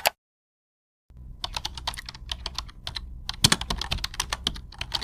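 Computer keyboard typing: a quick, irregular run of key clicks starting about a second in, after a short click or two at the very start.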